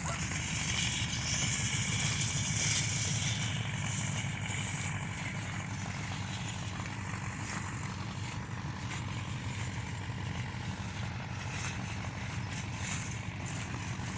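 Tractor engine running steadily at an even pitch, with a hiss over it for the first few seconds.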